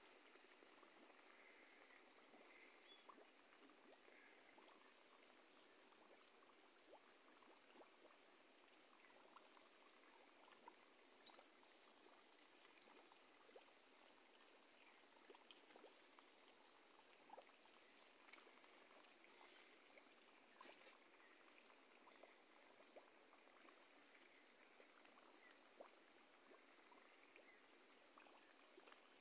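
Near silence: faint outdoor background hiss with scattered small ticks and a faint high steady tone.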